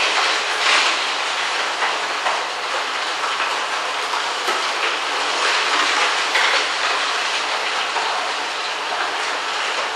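Eight slow masticating juicers running at once, their augers crushing carrots: a steady, dense grinding and rattling clatter.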